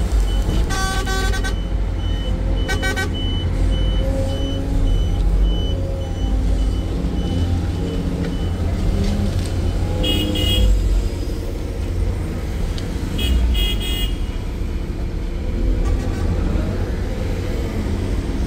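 Heavy diesel engines of an excavator and dump trucks running steadily. Short horn toots sound about a second in, near three seconds, around ten seconds and again around thirteen seconds. A high, steady beeping, typical of a truck's reversing alarm, runs through the first half.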